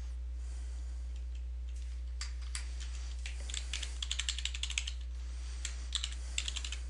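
Typing on a computer keyboard: scattered keystrokes from about two seconds in, a quick dense run in the middle and another short flurry near the end, over a steady low hum.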